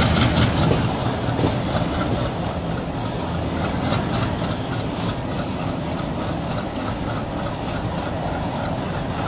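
ALCO diesel locomotive engine chugging steadily with a fast, even beat while the train runs along the track, heard close up from the locomotive.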